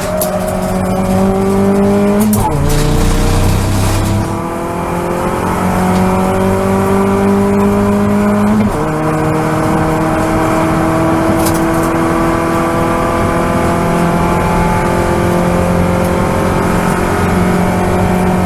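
Toyota Vios race car's four-cylinder engine heard from inside the cabin, pulling hard with its pitch climbing steadily. The pitch drops suddenly at two upshifts, about two seconds in and again a little after eight seconds, then climbs again.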